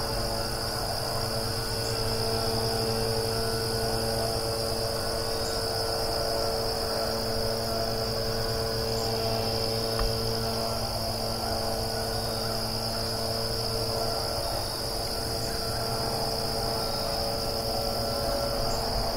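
Steady chorus of crickets trilling, a continuous high-pitched drone, over a low, even hum from a distant engine.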